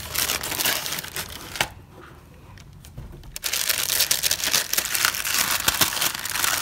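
Honeycomb kraft paper packing wrap crinkling as hands lift, turn and unfold it. It goes quieter for about a second and a half near the middle, then crinkles again.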